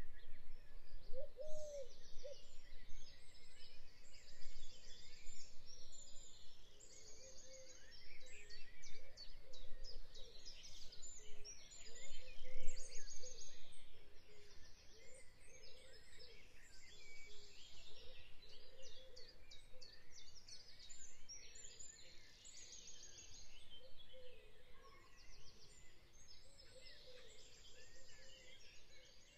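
Woodland birdsong: several birds singing at once, a busy mix of high trills and chirps with a lower repeated call underneath. A low rumble swells briefly about twelve seconds in.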